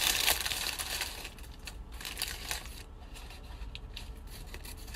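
Paper biscuit wrapper crinkling as it is opened and handled, densest in the first second or so, then fainter scattered rustles and clicks.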